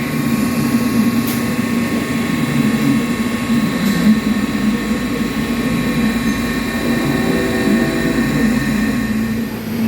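TIG welding arc buzzing steadily, a constant hum with a thin high whine over it.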